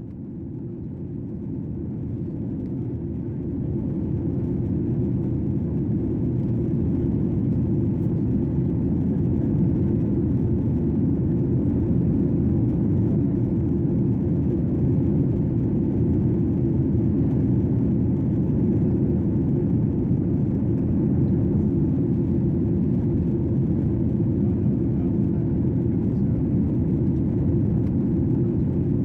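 Airliner cabin noise: a steady, deep rumble with no tones or events in it. It swells up over the first few seconds, then holds level.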